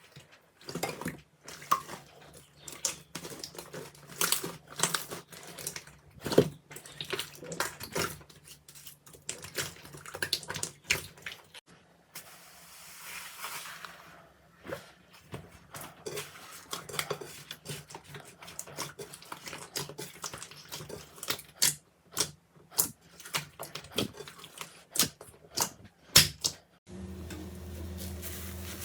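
Slime being squished and worked by hand, making many irregular sharp pops and clicks, with a softer squelching stretch midway. A steady low hum comes in near the end.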